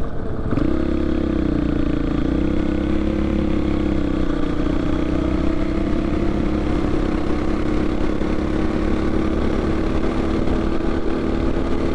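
Husqvarna FE501s dirt bike's single-cylinder four-stroke engine running steadily as the bike rides on, its note picking up about half a second in and then holding even.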